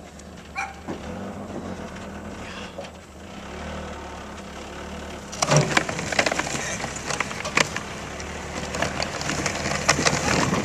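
A truck driving slowly with a low steady engine hum, towing a small caster-wheeled cart over a sandy dirt road. About halfway in, a louder rushing noise full of clicks and rattles sets in as the cart's small wheels scrape and jolt over the dirt, and it grows louder toward the end.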